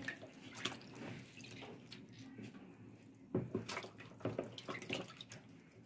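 Wet squelching and slapping of raw meat pieces being rubbed and turned by hand in a liquid chermoula marinade in a plastic basin, with a quick run of wet smacks past the middle.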